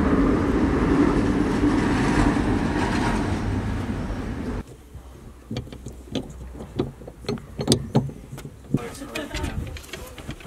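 Loud vehicle noise from the street for about four and a half seconds, cut off suddenly. Then a run of sharp clicks and knocks as a suction-cup camera mount and a metal clamp on a steel pole are handled and tightened inside the car.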